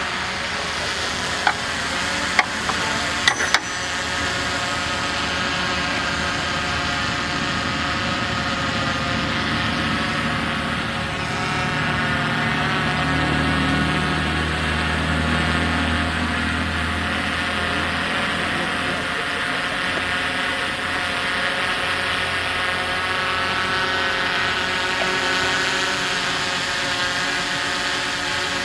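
Earthmoving machine engine running steadily, with a few sharp clicks a couple of seconds in and a deeper rumble swelling near the middle.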